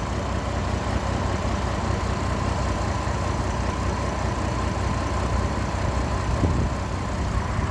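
GMC Envoy engine idling roughly with the hood open, the motor shaking and jumping around; the owner suspects a misfire from a failing camshaft position sensor.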